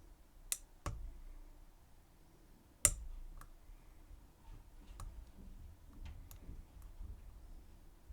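Small, sharp metallic clicks and ticks from lock picks working the pins inside a Schlage Everest 29SL cylinder, irregularly spaced, with the loudest click about three seconds in.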